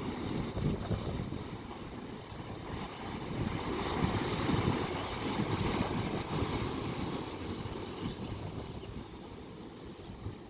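Ocean waves washing in, swelling to a peak about four to five seconds in and then easing off, with wind buffeting the microphone.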